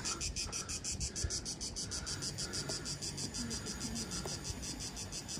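Cicadas singing in the pines, a steady, rapid, even pulsing buzz.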